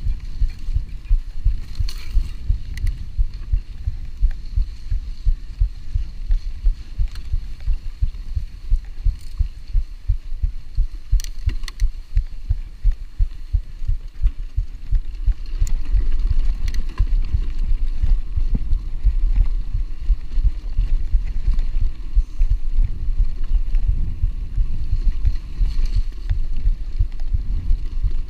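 Mountain bike jolting over rough grassy ground: a rapid run of low thumps and rattles from the bumps, with a few sharp clicks, growing steadier and denser about halfway through.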